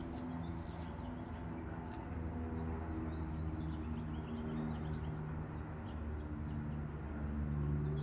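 Distant electronic outdoor warning sirens (Whelen WPS-series) sounding a test: a mix of steady low tones, with a siren beginning its wail tone, rising in pitch, near the end.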